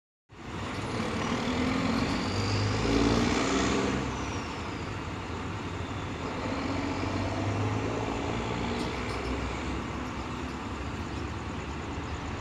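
Road traffic going past: steady tyre and engine noise from cars and trucks, loudest about three seconds in.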